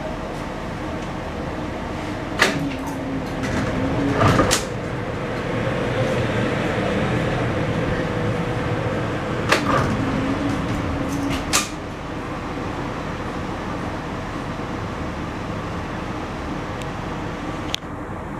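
Siemens-Duewag U2 light-rail car's doors cycling twice: each time a clunk, a low motor hum lasting about two seconds, then another clunk. A steady hum from the car runs underneath.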